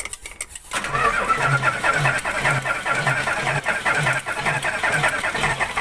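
Isuzu 10PE1 V10 diesel engine being started, cutting in about a second in with a steady beat of about two pulses a second. Air is still being bled from the loosened injector lines, and two cylinders are not yet getting fuel.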